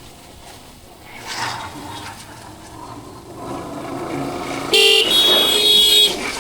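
Vehicle horns sounding in road traffic: a short loud blast near the end, then straight away a longer honk of about a second, over the steady low noise of a motorcycle ride.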